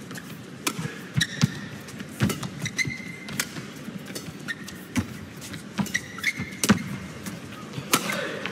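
Badminton rally: rackets striking the shuttlecock back and forth in sharp, irregular hits, with short high squeaks from players' shoes on the court between them.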